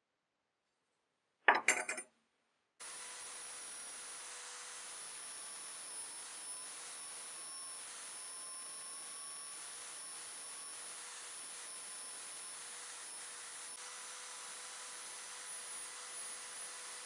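Brass wire wheel spinning in an electric drill, brushing rust off a steel scissor blade: a steady whine over an even hiss that starts abruptly about three seconds in. Before it, a brief sharp clatter about a second and a half in.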